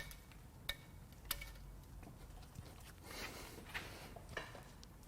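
Faint handling noises on a partly stripped 4.6L V8 engine: a few sharp metallic clicks in the first second and a half, then softer scraping and rattling as a part, likely the dipstick, is worked at.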